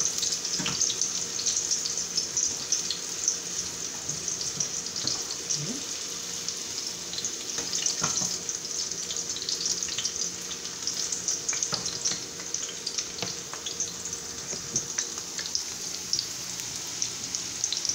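Thin sweet potato slices frying in hot oil in a stainless steel skillet: a steady crackling sizzle, with a few light clicks as a metal spatula turns the slices against the pan.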